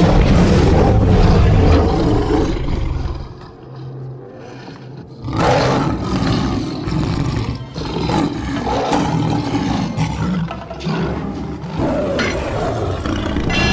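Smilodon creature sound effects: a long, low roar that fades away about three seconds in, then a fresh roar breaking in sharply about five seconds in, followed by more roars.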